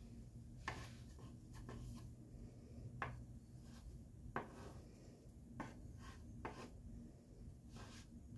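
Silicone spatula scraping and tapping against a nonstick frying pan as a grilled cheese sandwich is pushed around in it: a few faint, scattered scrapes and taps over a faint low hum.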